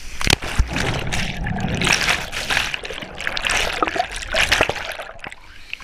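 A person splashing feet-first into a waterfall pool, then underwater bubbling and rushing as the camera stays submerged for about five seconds. The rush drops off just before the end.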